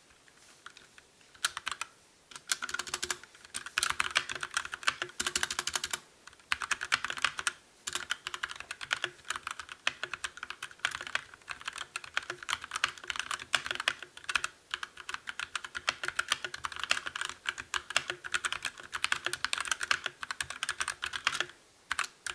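Fast continuous typing on a Drevo Calibur mechanical keyboard with Outemu brown tactile switches: a dense stream of key clicks and clacks, with a few brief pauses.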